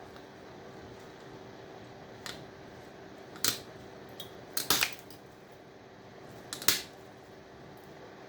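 Hand tools clicking and snapping against a MOSFET from a power-supply board as it is broken open to see how thick its copper is: about five short sharp snaps, the loudest near the middle, over a faint steady hum.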